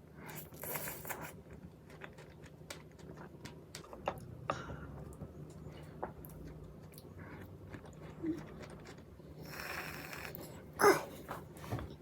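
Close-up eating sounds: chewing and wet mouth noises while eating strawberries with whipped cream, with scattered small clicks and one louder sharp smack or clink near the end.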